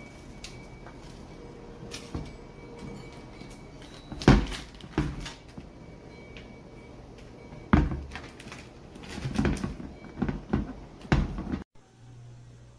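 A series of hard knocks and clunks as a rice cooker is handled and set down on a kitchen counter, the loudest about four seconds in and again just before eight seconds. After a brief cut near the end, a dishwasher runs with a low steady hum.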